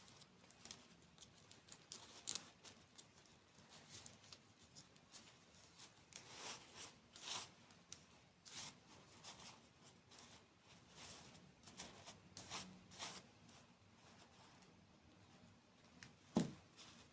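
Close-miked ASMR eating sounds: irregular crisp crunches and sticky mouth clicks of desserts and candy being bitten and chewed, thickest in the middle, with a wetter smack near the end.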